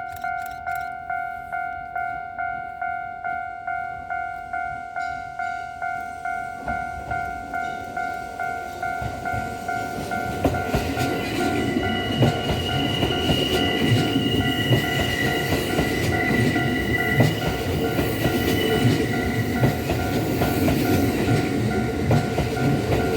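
Japanese level-crossing warning bell ringing about twice a second with a steady two-tone ding. From about ten seconds in, a Kintetsu 5800-series train passes over the crossing, its wheels rumbling and clacking over the rail joints with a high whine for several seconds, while the bell keeps ringing.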